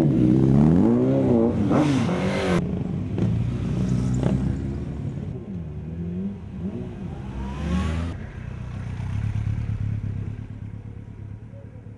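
Motorcycle engines revving as the bikes pull away one after another, the pitch repeatedly rising and falling with the throttle. The loudest revving comes in the first couple of seconds; after a few shorter revs the engine sound settles lower and fades toward the end.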